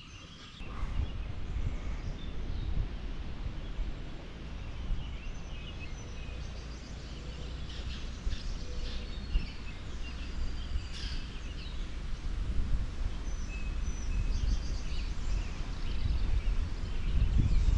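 Outdoor river ambience: a steady low rumble, like wind on the microphone or water moving around the wading angler, with birds chirping here and there.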